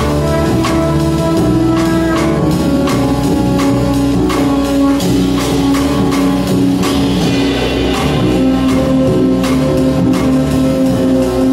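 Live improvising jazz-contemporary ensemble playing a dense passage: piano, electric bass, double basses, saxophones, trumpet, flute and drum kit. Held notes sound over frequent drum and cymbal hits.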